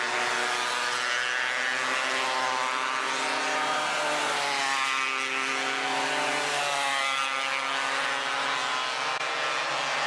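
270cc micro sprint car engines running on the track, their pitch rising and falling as the cars pass.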